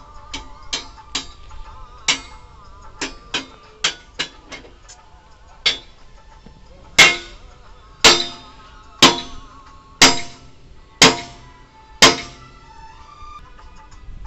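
Metal clanging on steel: scattered light knocks, then six hard ringing strikes about a second apart in the second half, over faint background music.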